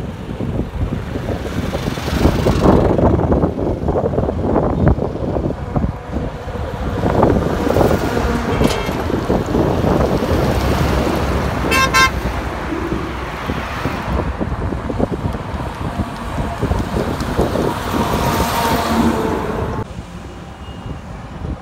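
Highway traffic passing close by: trucks and smaller vehicles going past with engine and tyre noise that swells and fades, a cement mixer truck among them. A vehicle horn gives short toots about nine and twelve seconds in.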